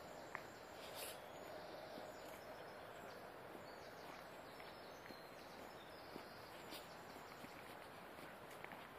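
Quiet outdoor ambience: a faint steady background hiss with a few soft, irregularly spaced clicks and some brief faint high chirps, like distant birds.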